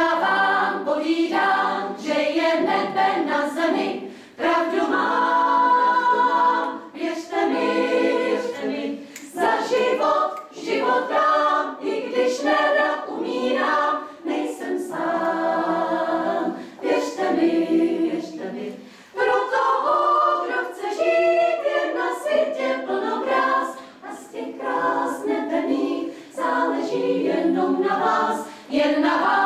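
Women's choir singing a cappella in several parts, in phrases of a few seconds with short breaks between them.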